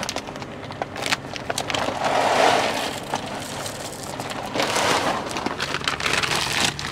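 A bag of dry dog food rustling as it is handled, and kibble pouring into a collapsible bowl as a patter of small clicks.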